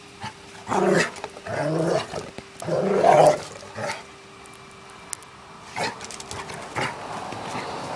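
Large dog giving three deep, drawn-out barks in quick succession, followed by two short, sharper sounds near the end.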